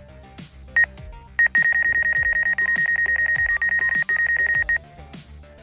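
DJI Fly app's obstacle-proximity warning beeping at a high pitch: single beeps about once a second, then rapid beeping for about three seconds before it stops. This is the sign of the drone's sensors detecting a nearby obstacle such as a tree. Background music with a steady beat plays underneath.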